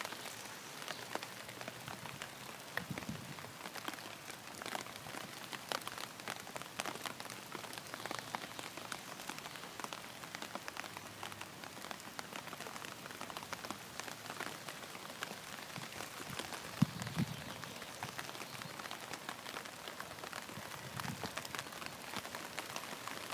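Steady rain falling on the water of a pond, an even hiss made of many fine drop ticks, with a few soft low bumps, the clearest about three-quarters of the way through.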